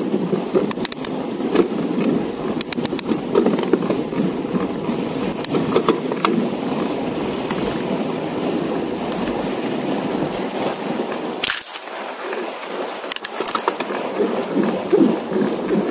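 Fat bike rolling over a packed snow trail: a steady crunching, rumbling tyre noise with scattered clicks and rattles, and one sharp knock about eleven and a half seconds in.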